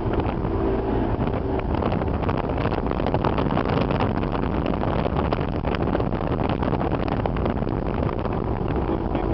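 Motorboat running at speed across open water: a steady engine drone mixed with water rushing past the hull, and wind buffeting the microphone.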